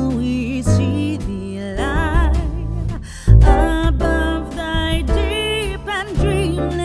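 Background music: a song with a singing voice over guitar and a steady bass.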